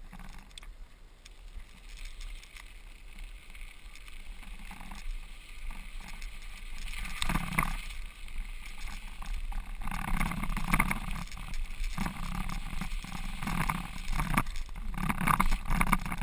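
Snow bike tyres rolling over wet ice and slush, a steady rushing noise that grows louder and rougher about halfway through.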